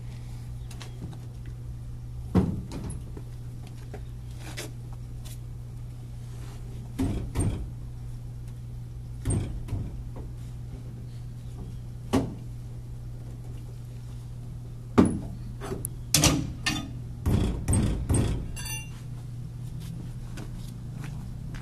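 Scattered metallic knocks and clanks from the spare tyre and its under-bed carrier being worked on beneath a Chevrolet S10 pickup, coming more often near the end with a quick run of clicks, over a steady low hum.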